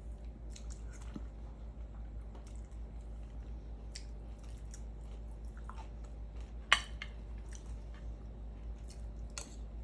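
Close-up chewing and soft, wet mouth sounds of someone eating fish, with a few faint clicks and one sharp tick about two-thirds of the way through.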